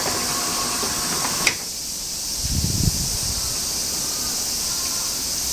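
Rolling shutter giving off an abnormal noise: a faint squeal as it moves, a sharp click about a second and a half in, after which it goes quieter, then a short low rumble a second later. A steady high hiss runs underneath.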